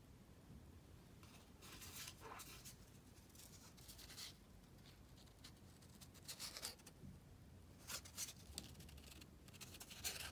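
Faint rustling and scraping of stiff white card hang tags being handled and flipped close to the microphone, in several short, irregular bursts.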